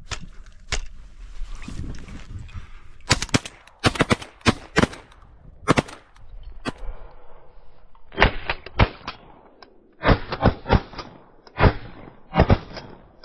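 Shotguns firing at ducks: a dozen or more sharp blasts, mostly in quick volleys of two to four shots, from several guns. The shots in the second half sound duller.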